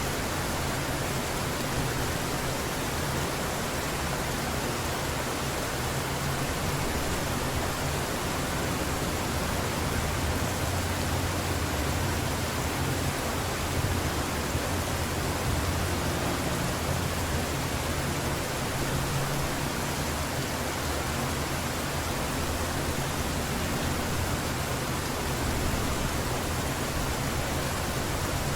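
Heavy rain falling steadily, a dense even hiss, with a low rumble underneath that swells in the middle.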